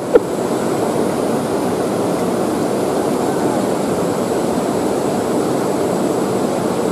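Steady rush of river water flowing fast over rocks and stones.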